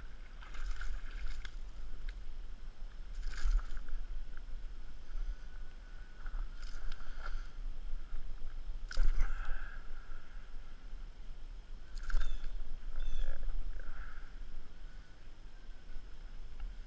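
A handful of sharp knocks and clatters spread out over a steady low rumble.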